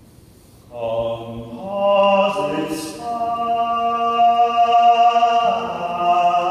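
Four-voice vocal ensemble (soprano, alto, tenor and bass) entering together about a second in and singing sustained chords. The held notes change a few times, with a brief hiss of a sung consonant near the middle.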